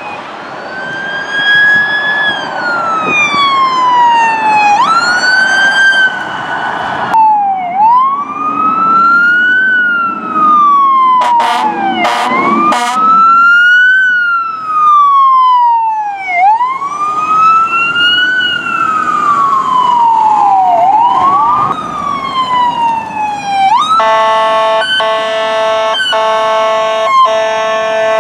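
Electronic wail sirens of responding emergency vehicles, each cycle sweeping up quickly and falling slowly over about two to three seconds, heard from several vehicles one after another. Near the end a steady, many-toned electronic blare replaces the wail, broken by short regular gaps.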